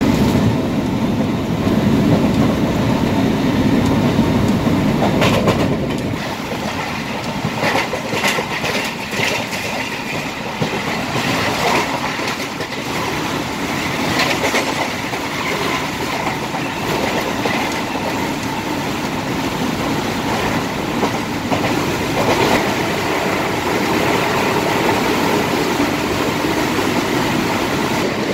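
Mumbai local electric train running along the track, a steady rumble with wheels clacking over rail joints and points at irregular intervals. The low rumble is heaviest for the first few seconds, and the clacks come about every second or two from there on.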